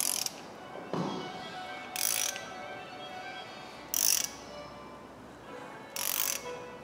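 Ratchet wrench on the crankshaft bolt of a Mazda RF diesel engine, turning the engine over by hand to check the timing marks on a newly fitted timing belt. The ratchet clicks back four times, about every two seconds.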